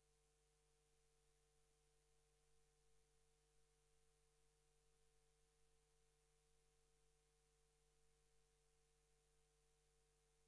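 Near silence: a dead audio feed with only a faint, steady electronic hum.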